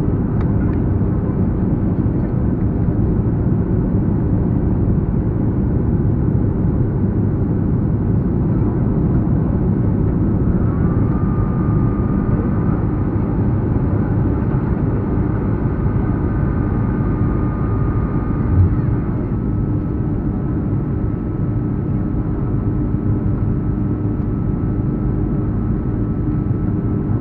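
Steady rumble of jet engines and rushing air inside an airliner cabin at a window seat as the plane descends to land. A faint high whine comes in partway through, and there is one brief thump about two-thirds of the way in.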